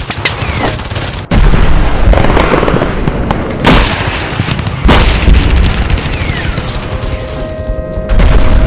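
Battle sound effects: four heavy booms with gunfire crackle between them and a couple of short falling whistles, over music.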